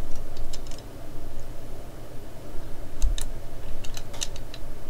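Light clicks and taps of small plastic and die-cast parts being handled and pressed together on a model car kit: a few in the first second, then a quick cluster from about three seconds in, over a low steady hum.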